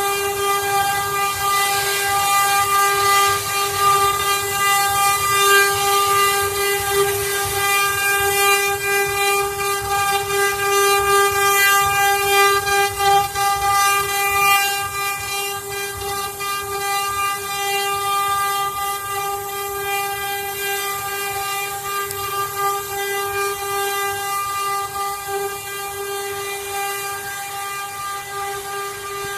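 CNC router spindle running at a steady high pitch with a whine and overtones, over the hiss of the bit cutting through sheet material.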